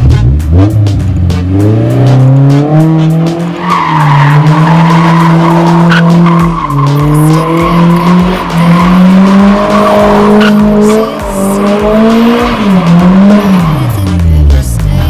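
Honda S2000's four-cylinder engine revving hard through a MagnaFlow dual-outlet aftermarket exhaust: the note climbs over the first few seconds, holds high with brief dips, and drops off near the end. Tyres squeal through the middle stretch.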